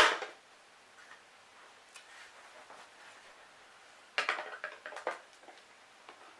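A sharp click, then a cluster of clicks and light rattles about four to five seconds in, like hard objects being handled and set down.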